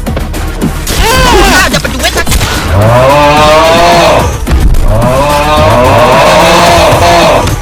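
Cow mooing sound effect: two long, drawn-out moos, the second longer, over the animation's soundtrack.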